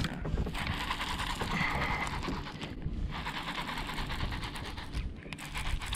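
Baitcasting reel whirring as line goes out on a cast and is cranked back in, in two stretches with a short break about three seconds in.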